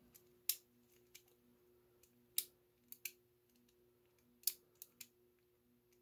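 Light metallic clicks and clacks from a removed door knob and its brass lock cylinder being handled and turned, about eight at uneven intervals.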